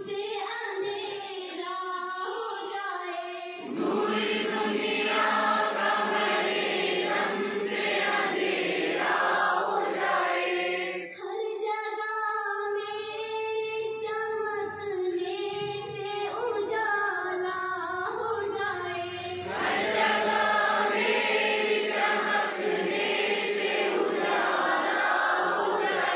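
Many young voices singing together in unison, a school morning-assembly song sung in phrases with short breaks. It grows louder about four seconds in, and again about twenty seconds in.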